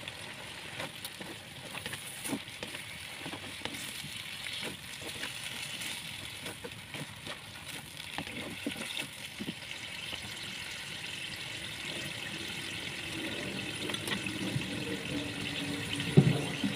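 Chicken, tofu and vegetables simmering in a granite-coated wok with a steady bubbling hiss, while a spatula stirs them, scraping and knocking against the pan now and then. A single thump near the end.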